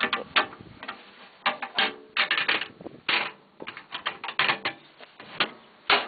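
Irregular clicks and rattles from an ammo box and the pill bottle of spare shear pins inside it being handled.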